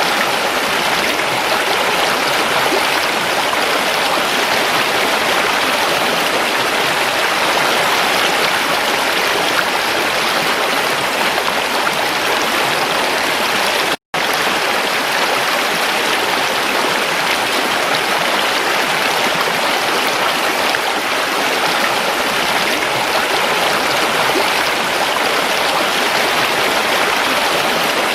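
Creek water running steadily. The sound cuts out for an instant about halfway through.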